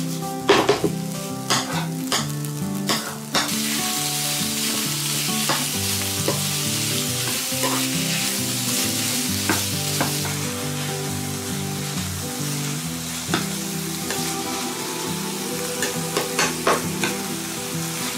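Ground meat and diced onions sizzling in a frying pan, stirred and scraped with a metal slotted spatula. Sharp spatula knocks against the pan come in the first few seconds, then a loud, steady sizzle from about three seconds in, with occasional scrapes.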